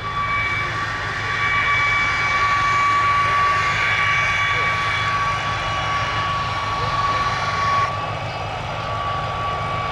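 A replica Royal Aircraft Factory S.E.5a biplane's propeller engine running at low power as the aircraft comes in to land on grass and rolls out. A steady high whine runs alongside it. The sound eases a little about eight seconds in.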